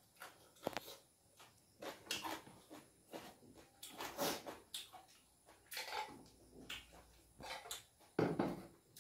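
Close-up eating sounds: a man chewing mutton and duck meat with rice, with irregular wet smacks and clicks of the mouth and fingers picking at food on a steel plate. A louder, lower sound comes near the end.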